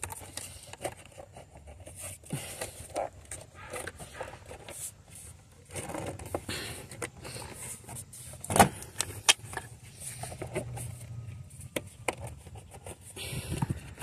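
Hands working hoses, clamps and plastic fittings off an electronic throttle body: scattered clicks, scrapes and rattles, with one sharp click a little past the middle.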